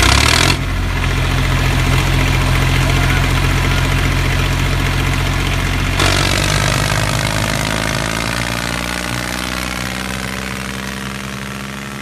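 Low, steady sound of a diesel tractor engine idling, with a slight change about halfway through.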